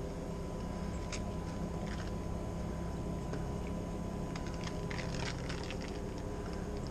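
Steady low mechanical hum with a faint constant high tone, and a few soft clicks and rustles as a black rubber hose is handled and moved.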